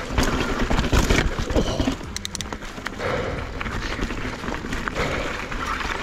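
Mountain bike riding down a rocky dirt trail: tyres rolling and crunching over rock and dirt, with knocks and rattles from the bike, heaviest in the first two seconds and then settling into a steadier rush.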